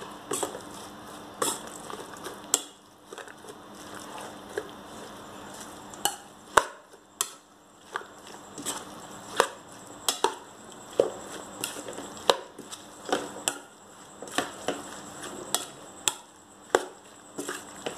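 Metal spoon stirring sliced crisp eggplant and chili paste in a stainless steel bowl: a soft wet stirring with irregular sharp clinks of the spoon against the bowl, roughly one a second.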